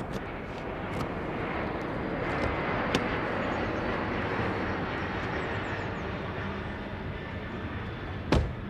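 A car door being opened with a few small clicks and then slammed shut with a loud thud near the end, over a steady outdoor rumble that swells and eases off.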